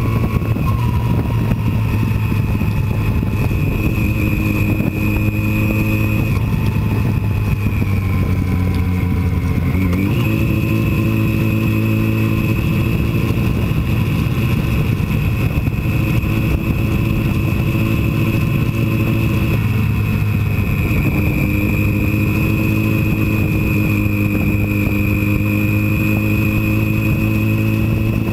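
Motorcycle engine running steadily while riding at road speed, over a rush of wind noise. About ten seconds in, the engine note sinks and then jumps up sharply before settling steady again.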